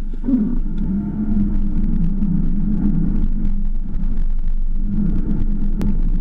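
Inside the cabin of a MINI Cooper S Paceman driving on packed snow: its turbocharged 1.6-litre four-cylinder engine runs at a steady pitch under a continuous rumble of tyres on the snow. A single sharp click comes near the end.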